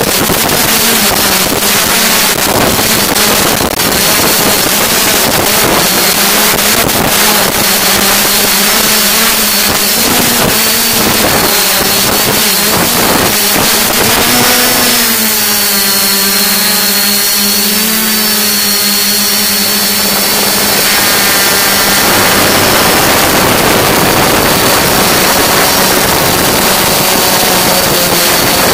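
S550 hexacopter's six brushless motors and propellers whirring in flight, heard from the onboard camera with wind noise on its microphone. The motor pitch shifts and wavers about midway as the craft adjusts its thrust.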